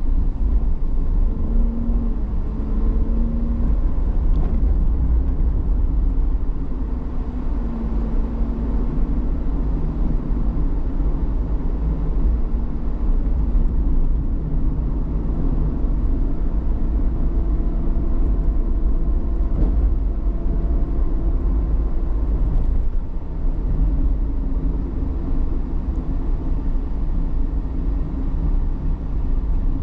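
Car driving along a road: a steady low rumble of engine and tyre noise, with the engine's faint hum shifting in pitch now and then.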